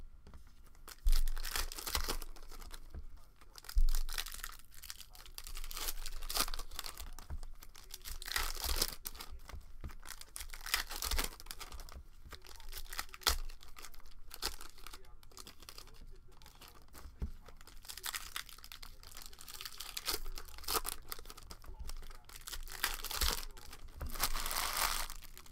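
Plastic trading-card pack wrappers crinkling and tearing as packs are opened and the cards shuffled by hand. There are two sharp thumps at about one second and four seconds in.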